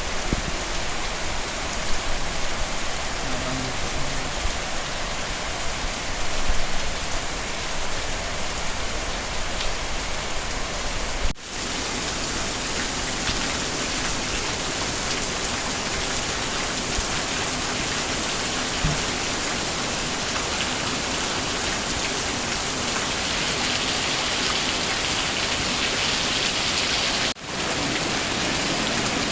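Heavy rain falling steadily, a dense even hiss with scattered louder drops in the first part. The sound breaks off for an instant twice, near 11 s and again near 27 s.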